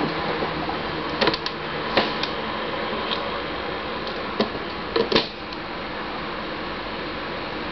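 A steady hiss with a scatter of light clicks and taps, the loudest pair about five seconds in.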